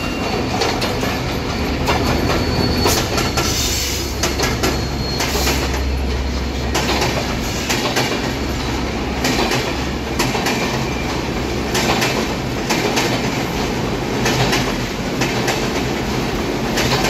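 Passenger train coaches rolling past on the track: a steady low rumble, with the wheels clacking over the rail joints in sharp, repeated knocks about once a second.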